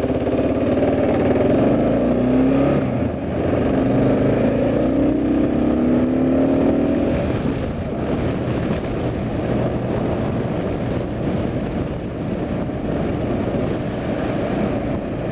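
Motorcycle engine accelerating, its pitch climbing over the first seven seconds or so, then a steadier rush of engine and wind noise as the bike cruises on.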